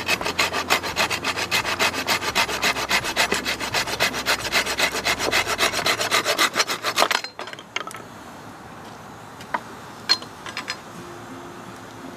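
Hand saw cutting firewood in fast, even strokes, several a second, which stop suddenly about seven seconds in; a few light knocks follow.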